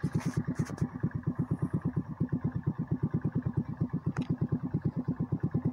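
Motorcycle engine idling at a standstill, an even throb of about ten beats a second.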